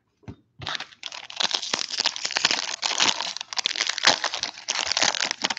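Foil wrapper of a Topps baseball card pack being torn open and crinkled by hand: a few short crackles, then a dense, continuous crinkling from about a second in.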